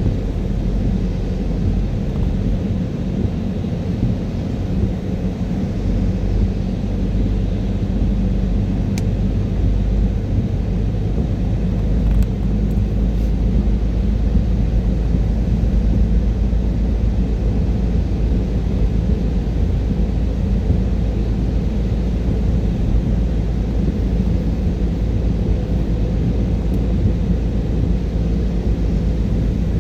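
A car driving on a rain-wet motorway: a steady, low rumble of tyre, road and engine noise.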